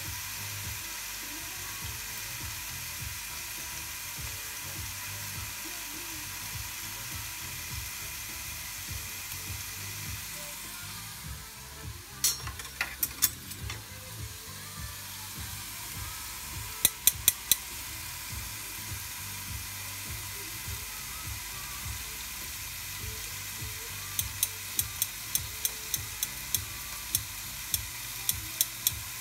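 Ribeye steak sizzling steadily between the closed plates of a Tefal Optigrill XL contact grill, cooking a little past medium. Sharp clicks come in a few small clusters around the middle and in a run of about a dozen, roughly two a second, near the end.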